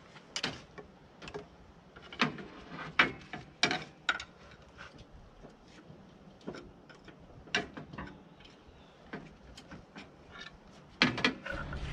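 A pry bar working a RAV4 engine loose from the transmission's bell housing studs: about a dozen sharp knocks and clinks at irregular intervals.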